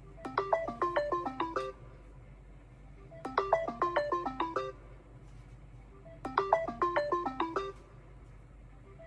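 A smartphone ringtone: a short, quick run of pitched notes, played three times with pauses of about a second and a half between.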